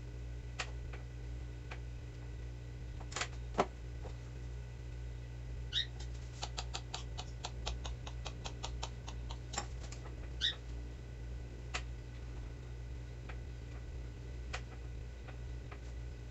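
A metal fork clicking and tapping on a stone counter as small balls of biscuit dough are pressed flat, with scattered single clicks and, in the middle, a quick run of light ticks at about five a second, over a steady low hum.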